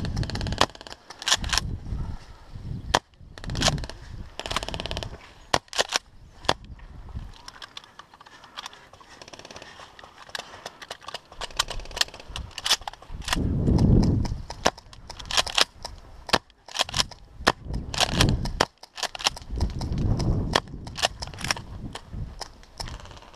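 Airsoft guns firing in a skirmish: many sharp, irregular pops and cracks, some single and some in quick strings. Between them come bouts of low rumble close to the microphone, the loudest about halfway through.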